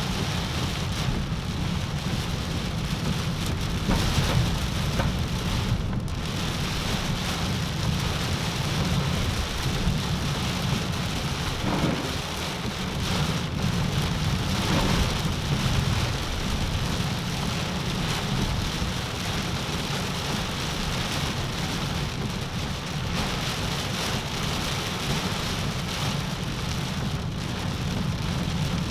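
Heavy rain coming down in sheets on a moving car, a dense steady hiss of rain on the roof and windshield over a low road rumble.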